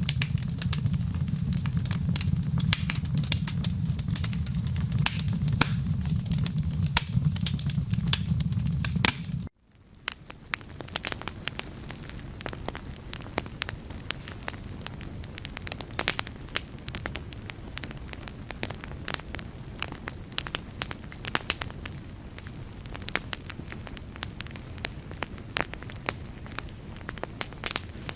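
Fire crackling with dense pops over a low rumble. About nine and a half seconds in, the sound cuts out abruptly and fades back in as crackling with much less rumble underneath.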